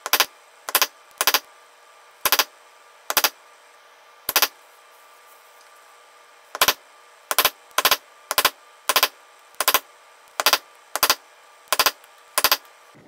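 A mallet striking a leather stamping tool held on the leather, in sharp taps that mostly come as quick double taps, about one to two a second, with a pause of about two seconds midway.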